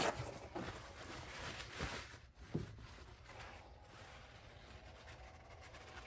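A few light knocks and clicks of metal parts being handled during a motorcycle fuel-system teardown, then quiet room noise.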